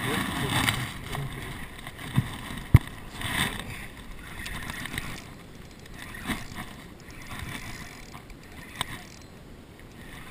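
Spinning reel being cranked by hand, with scattered handling clicks and knocks; one sharp knock about two and a half seconds in is the loudest.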